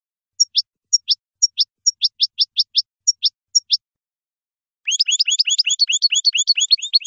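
European goldfinch singing: a series of short, high, downward-sweeping notes, then about five seconds in, a fast, dense twittering trill.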